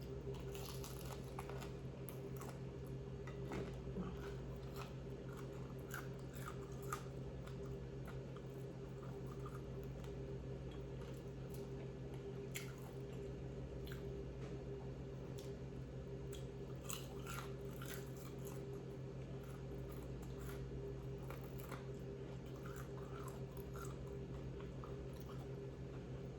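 A person biting and chewing crunchy food close to the microphone, with irregular crisp crunches and mouth clicks. A steady low hum runs underneath.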